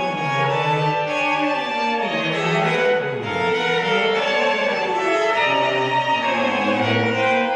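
String quartet playing contemporary music: violins and cello bowing held notes and sliding pitches, with a low glide downward about two to three seconds in.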